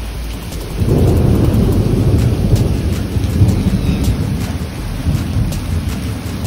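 Heavy hurricane rain falling steadily, with sharp drip ticks. A low rumble of thunder swells about a second in and slowly dies away.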